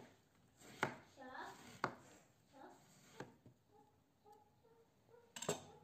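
A chef's knife slicing a zucchini lengthwise and knocking on a wooden cutting board: single sharp knocks about a second apart, then a louder quick clatter of knocks near the end.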